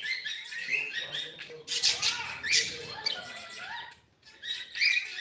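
Cockatiel chattering in short, stepped chirps, broken by harsh, noisy screeches about two seconds in and again near the end.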